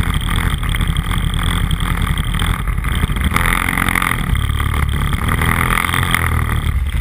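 Off-road vehicle engine running while riding along a snowy trail. The engine note changes and grows louder a little past three seconds in.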